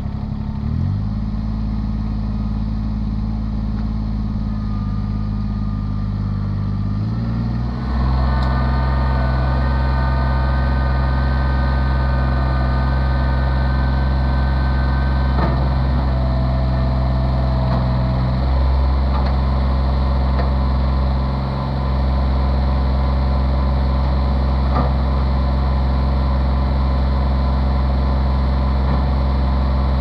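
Kubota compact tractor's diesel engine running steadily. About eight seconds in it speeds up to a higher, louder steady speed and holds there, with a few faint knocks.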